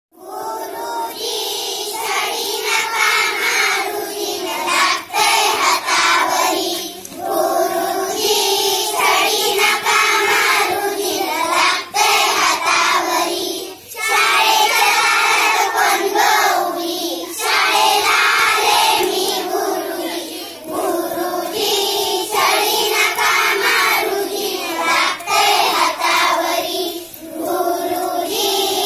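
A group of children singing a Marathi action song together in unison, phrase after phrase with short breaths between lines.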